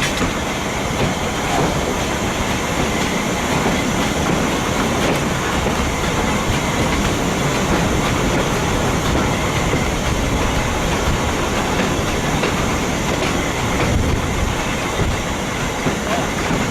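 Heritage train behind the steam locomotive Furness Railway No 20 running at low speed, about 15 mph: a steady noise of the coaches' wheels on the rails.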